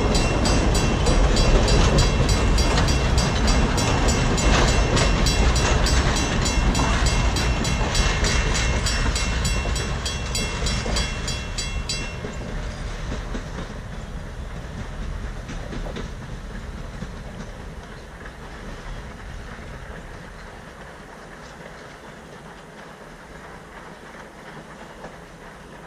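Passenger coaches rolling past on steel rails, wheels clicking over the rail joints in a quick, even rhythm. About halfway through the last coach goes by, the clicking stops and the rumble fades away as the train moves off.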